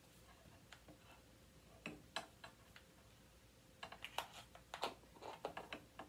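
Faint, irregular small clicks and soft rustles of a laptop charger's plastic adapter brick and cord being handled while yarn is knitted onto it, with a quick flurry of clicks near the end.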